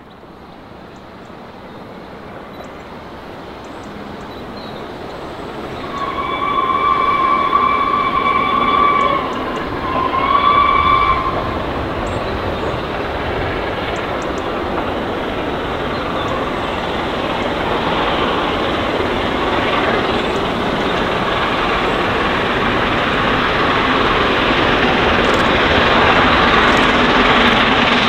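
Three-cylinder A1 Pacific steam locomotive 60163 Tornado, accelerating hard with a twelve-coach train, approaching and growing steadily louder. Its exhaust and the rolling train fill in and build to the end. A whistle sounds twice along the way, one long blast and then a shorter one.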